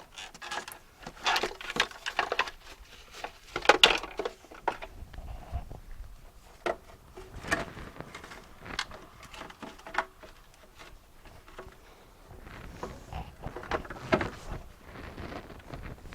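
Irregular clicks, knocks and light rattles of hard plastic parts being handled as the windscreen washer reservoir and pump are refitted to the car, with a few sharper knocks near the start and again late on.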